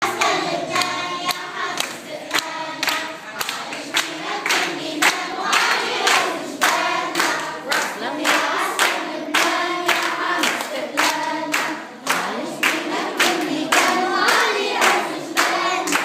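A group of children singing a song together, with claps keeping a steady beat about twice a second.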